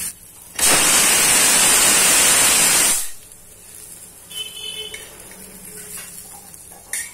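A loud, steady hiss that starts suddenly about half a second in and cuts off abruptly about two and a half seconds later.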